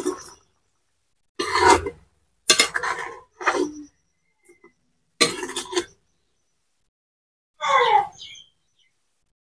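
A perforated metal ladle scraping and clinking against a metal karahi while curry is stirred, in about six short bursts with silence between them.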